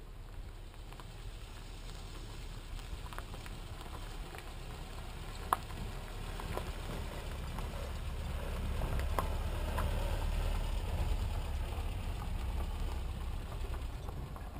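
A vehicle driving slowly on a rough dirt track: a low steady rumble with scattered sharp ticks and rattles, growing louder in the second half.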